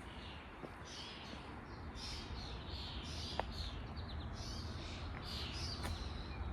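Wild birds chirping and singing, many short overlapping calls and trills, over a steady low rumble.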